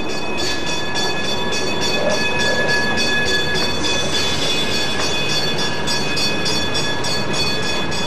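Manitou and Pike's Peak cog railway railcar rolling past, with a steady high whine and an even clicking about four times a second.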